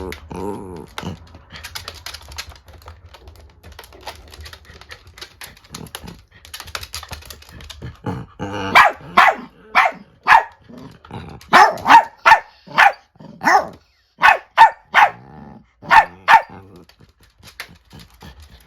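Small dogs (a miniature dachshund and a Chiweenie) squabbling angrily: quieter growls and scrabbling clicks at first, then about eight seconds in a run of about fifteen sharp, loud barks in quick bursts that stops about two seconds before the end.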